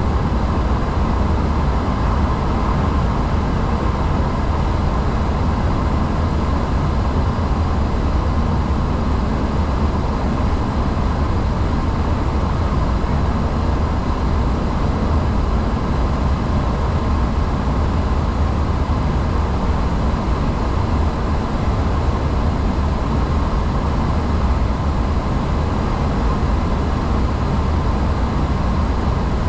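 Steady, loud cockpit noise of an Airbus A340-600 during its take-off and departure: a deep, even rumble of airflow and its four Rolls-Royce Trent engines, with a faint steady hum above it.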